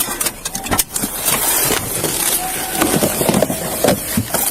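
Handling noise on a body-worn camera as the officer moves: a steady rustle of clothing and gear with scattered clicks and knocks.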